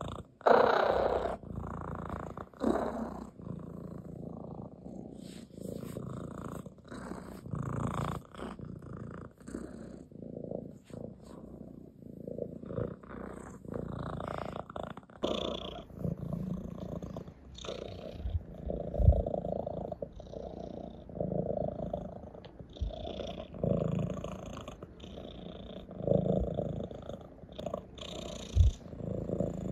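An orange tabby domestic cat purring close up, the purr swelling and fading with each breath: a contented purr while being stroked and scratched on the head and chin. Rustles of fur and fabric and a couple of soft bumps come from the petting hand.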